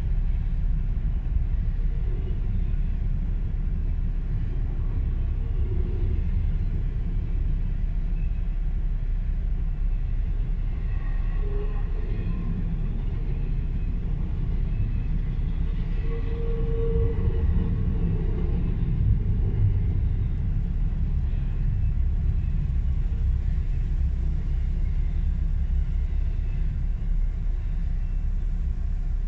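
Canadian Pacific freight train of double-stacked containers rolling past a level crossing, a steady low rumble heard from inside a car.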